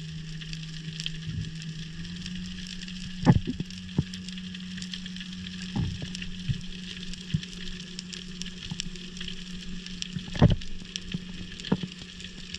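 Underwater ambience on a rocky seabed: the steady crackle of snapping shrimp, a steady low hum, and several sharp knocks. The loudest knocks come about three seconds in and again about ten and a half seconds in.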